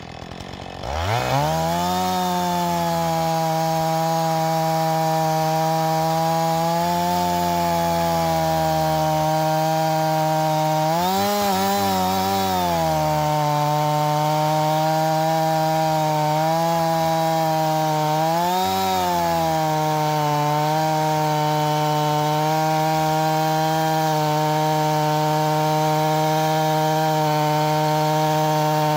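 Husqvarna 445 50cc two-stroke chainsaw with a custom-sharpened ripping chain, revving up about a second in and then held at full throttle through a long rip cut along a log. Its pitch stays steady apart from two brief rises and falls, around the middle and a little after.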